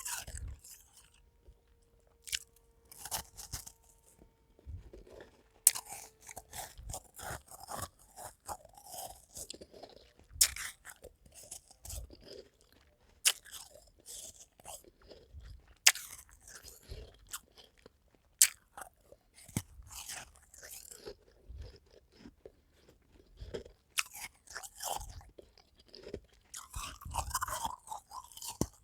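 A person biting into and chewing powdery white ice close to the microphone: a sharp, loud crunch with each new bite every few seconds, and softer crunching as the ice is chewed in between.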